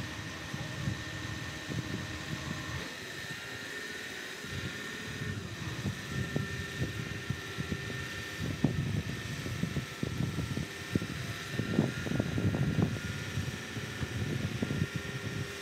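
Mobile crane's engine and hydraulics running while a house section hangs from it: a steady whine whose pitch shifts a few seconds in, over an uneven low rumble that grows stronger in the second half.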